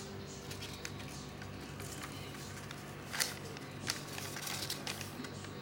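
Newspaper lining a plastic tub crinkling and rustling as a hand presses and moves it, with a few sharp crackles and taps, the sharpest about three and four seconds in, over a steady low hum.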